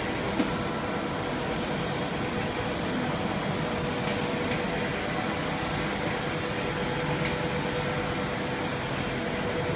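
Blown-film extrusion machine running: a steady mechanical whir of its motors and blowers with a constant high tone over it. A single light click about half a second in.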